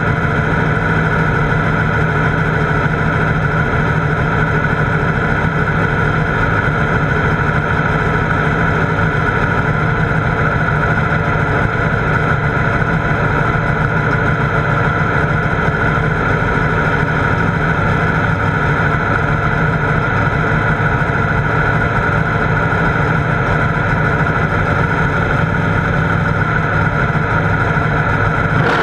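Pro Mod Camaro drag car's V8 idling steadily, heard from inside the cockpit.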